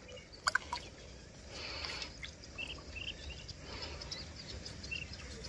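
Small birds chirping now and then, with a brief whistled call about half a second in, over a steady hiss of open-air background noise.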